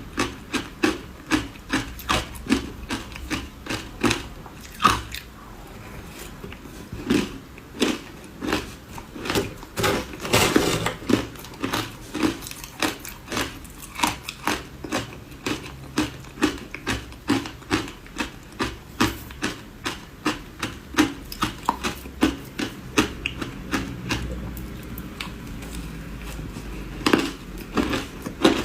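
A person chewing ice: crisp crunches repeating in an uneven rhythm of about two a second, with a denser burst of crunching about a third of the way in.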